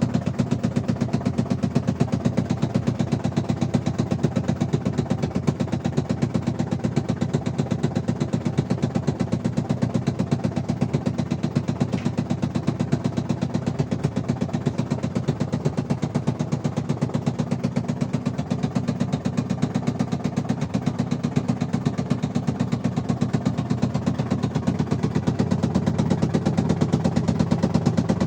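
Engine idling steadily with a rapid, even pulsing and a knock, the sign of loose bolts on its counterweight.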